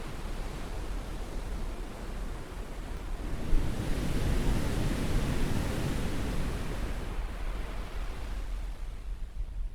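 Caribbean surf: a wave washing in as a steady rush that builds about three and a half seconds in and fades away toward the end.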